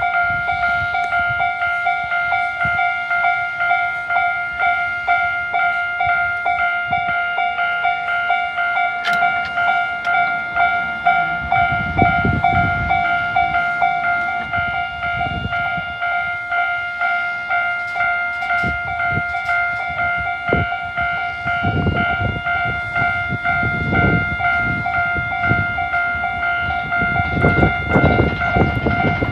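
Japanese electronic level-crossing alarms ringing, the JR standard tone and the older JNR-style tone sounding together as a fast, steady repeating ding. From about halfway through, a train passes over the crossing, its wheels clacking over the rail joints under the alarm.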